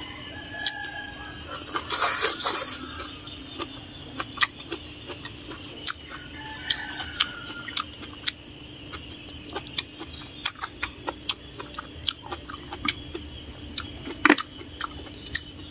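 Close-up mouth sounds of a person eating instant noodles with chopsticks: many small wet clicks of chewing, with one longer slurp about two seconds in.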